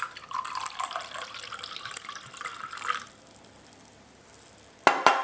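Cider poured from a glass bottle into a glass, gurgling for about three seconds before the pour stops. Two sharp knocks come near the end.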